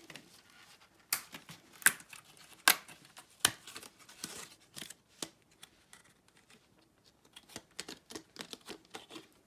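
Sharp plastic clicks and handling sounds from a computer's RAM sticks and the motherboard's memory slot latches during installation. Four crisp clicks come about once every 0.8 s early on, followed by lighter scattered clicks and rustling.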